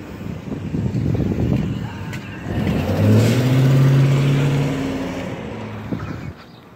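UPS delivery step van driving past, its engine droning steadily. The drone swells to its loudest about three seconds in as the truck passes close, then fades away.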